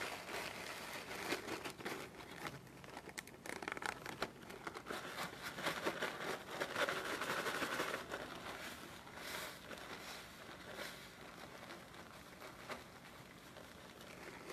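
Clear plastic bag crinkling and rustling as it is handled, an irregular run of small crackles, loudest about six to eight seconds in.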